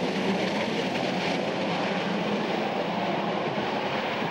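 Class 03.10 steam locomotive hauling a train, a steady running noise without a clear beat.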